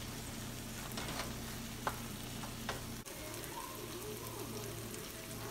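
Tomato sauce with onions sizzling in a nonstick skillet while a wooden spoon stirs and scrapes through it, with a few scrapes in the first half. After about three seconds the stirring stops and the sizzle carries on.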